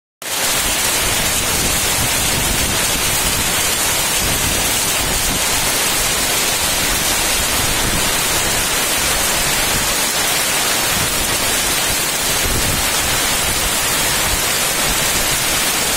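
Hailstorm with heavy rain pelting roofs and the street, a loud, steady hiss with no let-up.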